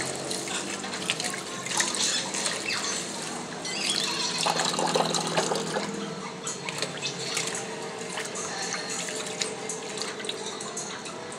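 Water from a kitchen tap pouring into a plastic tub of rice in a stainless steel sink, with a hand swishing and rubbing the rice through the water to rinse it.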